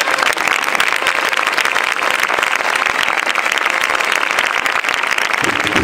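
A large crowd applauding steadily, a dense patter of many hands clapping at once.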